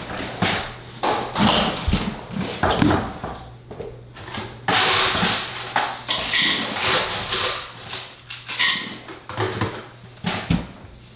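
Ice clattering and rattling as it is scooped from a freezer drawer into a soft-sided cooler bag, amid the rustle and knocks of the bag being handled. The clatters come irregularly, thickest a few seconds in.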